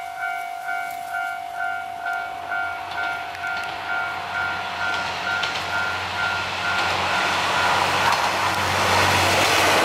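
A level-crossing alarm dings steadily, about twice a second, and stops about eight seconds in. Meanwhile the KiHa 2203 diesel railcar approaches, its engine and wheel noise growing louder toward the end.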